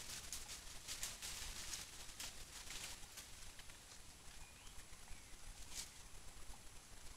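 Dry leaf litter rustling and crackling in short irregular bursts as monkeys move about on the forest floor, with a faint short chirp about four and a half seconds in.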